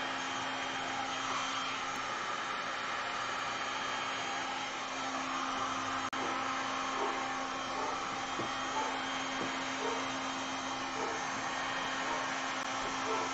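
Electric heat gun running steadily as it is played over wet epoxy resin: an even blowing hiss with a constant hum. The sound breaks off for an instant about six seconds in.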